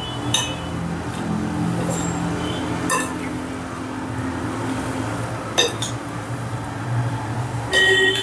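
Metal spoon stirring spice-coated raw mango pieces in a glass bowl, clinking sharply against the glass several times.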